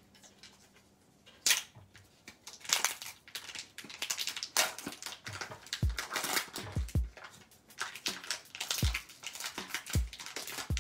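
Crinkling and tearing of the plastic wrapper on a block of mozzarella as it is peeled off by hand, in irregular crisp bursts, with a few soft low thumps.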